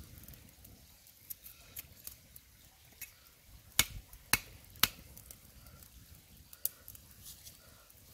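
Meat cleaver chopping on a flat stone: three sharp knocks about half a second apart near the middle and one more a couple of seconds later, with lighter clicks of the blade working a small root before them.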